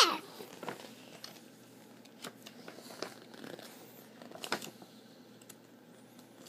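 The tail of a young child's high gliding squeal right at the start, then soft rustling and a few light taps as a picture book is handled.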